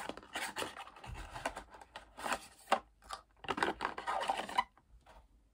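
A small cardboard product box being opened and handled: irregular scratching and rubbing of cardboard and packaging, stopping about four and a half seconds in.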